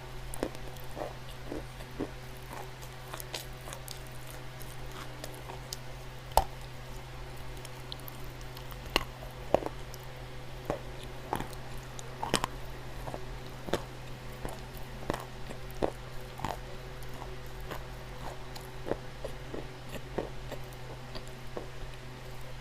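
Dry clay crunching and cracking in irregular sharp snaps, with a few louder cracks, over a steady low hum.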